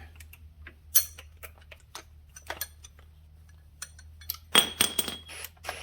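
Metal tools and parts clinking and knocking against each other during hand work on an ATV's suspension: a sharp clink about a second in, scattered lighter clicks, and a loud cluster of ringing metallic knocks near the end.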